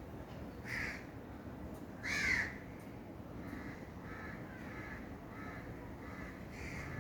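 Birds calling: two loud calls, about one and two seconds in, the second the loudest, then a run of fainter short repeated notes.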